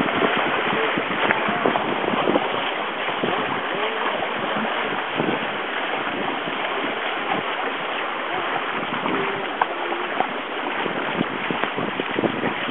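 Water rushing and splashing along the hull of a sailing proa under way, mixed with wind buffeting the microphone; a steady, unbroken wash of noise.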